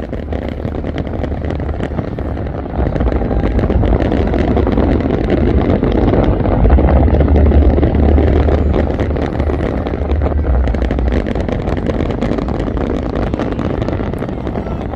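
Dense fireworks barrage: a continuous rumble of booms with rapid crackling pops throughout, growing louder about three seconds in and loudest around the middle.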